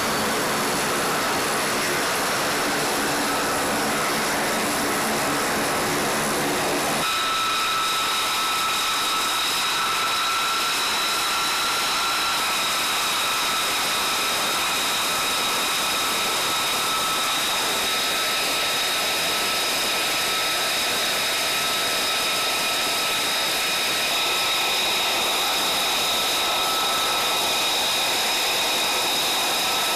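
F-35A Lightning II's Pratt & Whitney F135 turbofan running at ground idle: a steady rushing noise with a high whine. The tone changes abruptly about seven seconds in, after which the whine holds steady at several high pitches.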